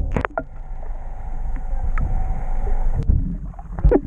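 Steady low rumble of a fishing boat at sea, with wind on the microphone and a few short knocks near the start and end.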